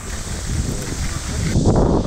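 Wind buffeting the microphone: a low rumble that swells into a louder gust near the end.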